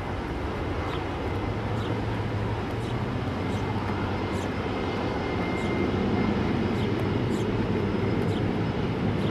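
Twin-engine widebody jet airliner taking off and climbing away, its engines at takeoff thrust giving a steady low jet rumble that grows a little louder over the second half.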